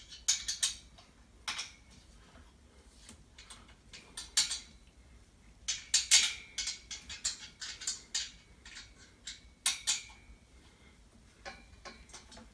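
Small Allen wrench clinking against steel bolt heads and the metal rack frame as bolts are tightened, in irregular clusters of sharp metallic clicks with short pauses between turns.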